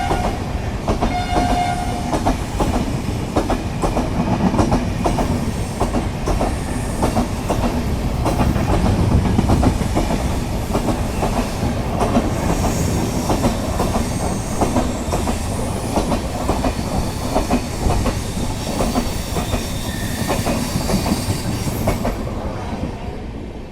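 Express train passing at full speed: a short horn blast about a second in, then the steady clickety-clack of the coaches' wheels over rail joints, fading away near the end.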